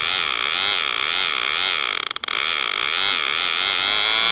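Small electric motor of a handmade miniature toy motorbike buzzing steadily, its pitch wavering up and down, cutting out briefly about two seconds in.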